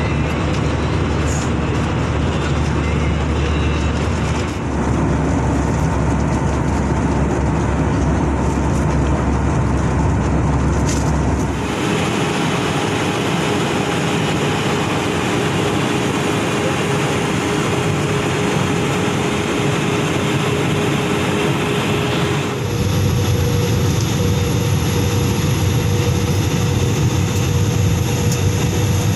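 Steady cabin noise inside an Airbus A320 airliner, the running of its engines and the rush of air with a faint hum, changing abruptly in tone about five, twelve and twenty-two seconds in.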